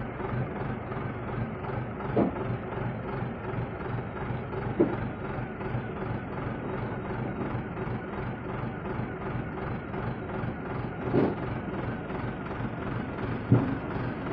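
Heavy Tata truck's diesel engine running steadily at low speed, with four short, louder sounds standing out from the engine noise.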